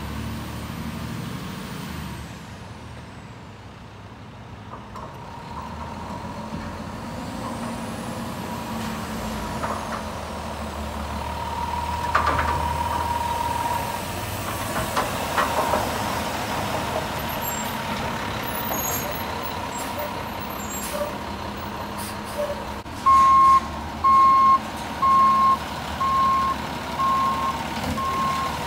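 Front-loader garbage truck engine running as the truck drives up, with a held high squeal a little past the middle. In the last few seconds its reversing alarm beeps steadily, a little more than once a second, as it backs up to the dumpster.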